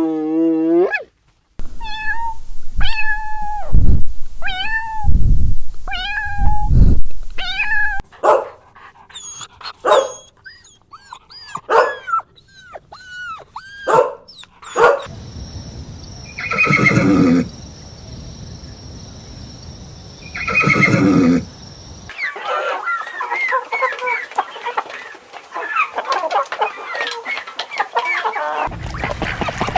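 Domestic cats meowing in a series of separate calls: short arched meows, then quicker calls, then two long drawn-out meows, followed by a busy stretch of many small, high chirping calls.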